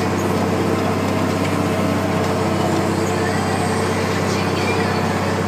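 Case IH 1455 XL tractor's six-cylinder diesel engine running steadily under load, pulling a four-furrow Kuhn slatted-mouldboard plough through the soil.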